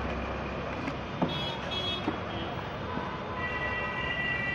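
Street traffic with a city bus driving past close by. Two short high-pitched toots come about a second and a half in, and a longer steady horn near the end.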